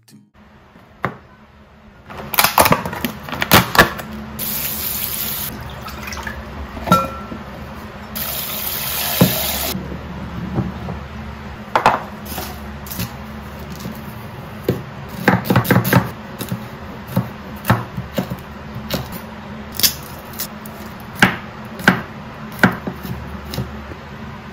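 Kitchen handling sounds: containers and a glass bowl knocking and clinking on a countertop, with many sharp knocks. A faucet runs into a steel sink twice, each time for about a second, around four and eight seconds in.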